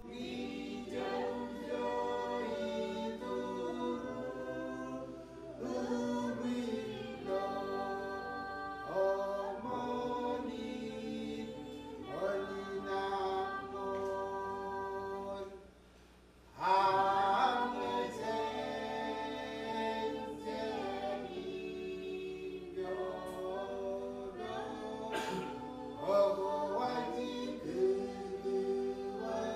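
Background music of a choir singing, with long held notes, breaking off briefly about halfway through.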